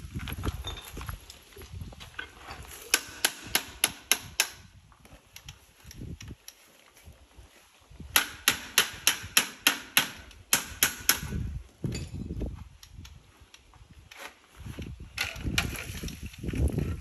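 Quick runs of sharp knocks, about three or four a second, from a paddle mixer on a power drill working tile mortar in a metal bucket.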